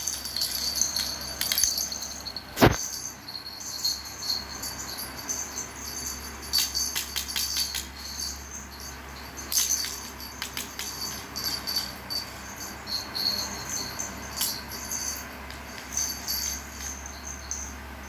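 Small metal jingle-bell toy jingling in irregular shakes and rolls as a cat plays with it, with a sharp knock a little under three seconds in.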